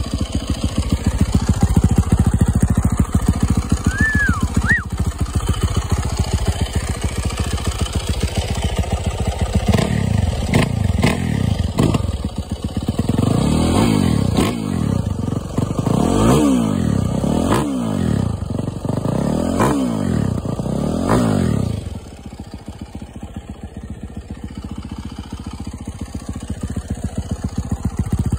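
2021 Yamaha YZ450F's 450 cc single-cylinder four-stroke engine idling, then revved in a series of quick throttle blips from about ten seconds in, each rising and falling in pitch. About eight seconds before the end it drops back to a quieter idle. This is a heat cycle, a run used in breaking in the engine.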